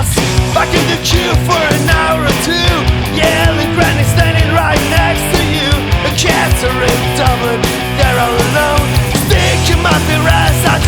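Rock band playing live and loud, a punk-rock style song with a steady drum beat.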